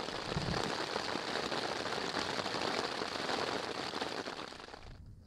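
Heavy rain from a massive rainstorm pattering steadily, easing slightly and then cutting off sharply near the end.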